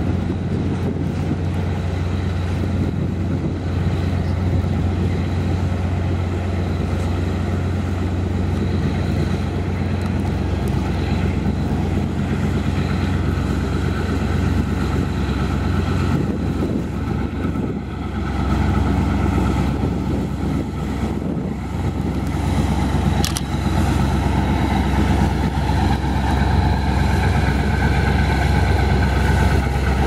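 Kometa hydrofoil's diesel engines running with a steady low drone. The sound dips briefly a little past halfway, then runs a little louder.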